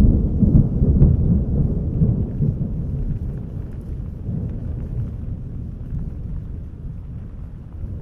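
Thunder with its bass boosted: a deep rolling rumble that slowly dies away.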